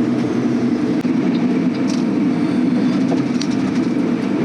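Steady road and engine rumble heard inside a semi truck's cab at highway speed, with a few faint clicks and rattles.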